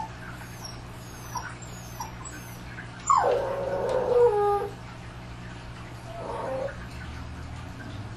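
A dog's whining howl: one loud cry about three seconds in that drops in pitch and then holds for about a second and a half, followed by a shorter, fainter whine a little after six seconds.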